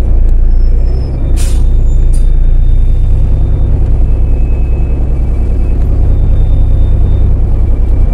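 Interior of a Heuliez GX 127L city bus under way: a steady, loud, low rumble of engine and road noise, with a short hiss about a second and a half in.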